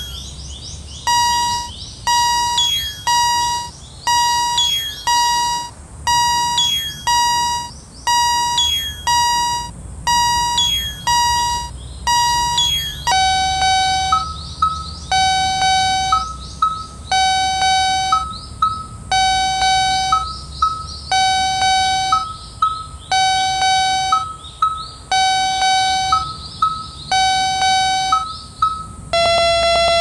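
Electronic Japanese railway crossing bell ringing in steady repeated kan-kan strokes. About thirteen seconds in it changes to a lower bell whose strokes alternate between two pitches, and near the end a quicker electronic jingle takes over.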